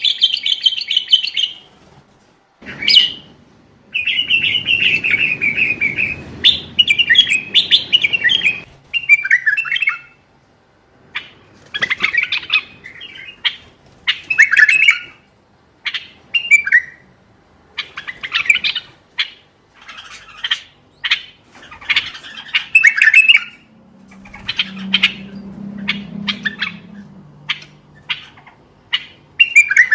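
Common bulbul singing: short chattering and warbling phrases, repeated again and again with brief pauses between them.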